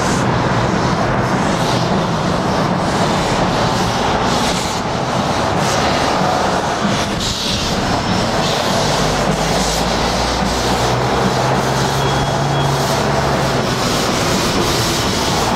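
Baldwin 2-8-2 Mikado steam locomotive working slowly toward the microphone with its cylinder cocks open, blowing steam. The noise is steady and loud, with a low hum underneath about halfway through.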